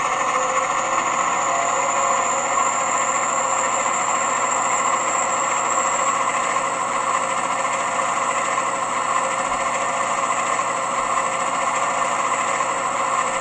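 Class 68 diesel locomotive sound file playing through a model locomotive's decoder speaker: the engine held steady at notch 5. A thin high-pitched whine runs alongside and fades about six seconds in; the owner takes it for the thyristor sound, which the MS decoder plays by mistake while the speed lock is on.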